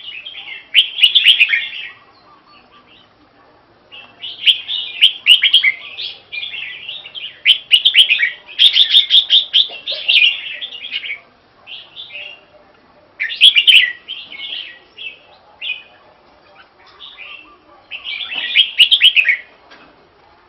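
Caged red-whiskered bulbul singing: bursts of quick, warbling whistled phrases, broken by short pauses, with one long run in the middle.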